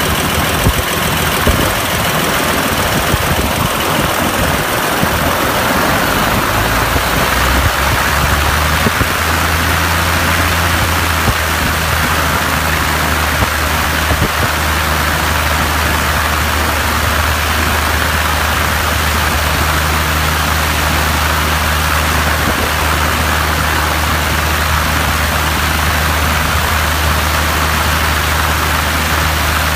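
Light aircraft piston engine running on the ground with its cowling off, turning a new propeller. It runs unevenly at low speed for the first several seconds, then about seven to nine seconds in it picks up to a higher, steady speed and holds there.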